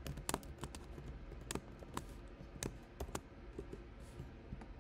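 Computer keyboard typing: unhurried, irregular keystrokes, each a separate click.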